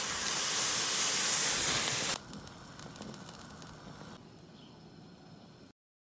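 Saucepan of water at a rolling boil, bubbling with a steady hiss as Cheetos are tipped in. The hiss cuts off suddenly about two seconds in, leaving much quieter bubbling that drops lower again and then stops near the end.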